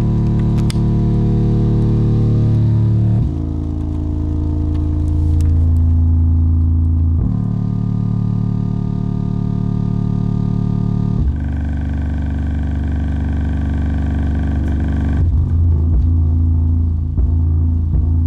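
Magnat Bull Power Doubleflex 210 subwoofer box playing deep bass at high volume. It holds low, sustained bass notes with overtones that change about every four seconds.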